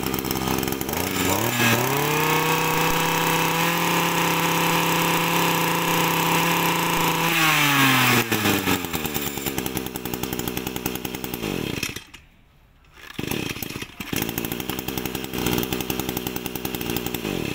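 Kioritz (Echo) 26 cc two-stroke brush cutter engine idling, then revved up to a steady high run for about five seconds and let back down to idle. It drops out for about a second near the end, then idles again.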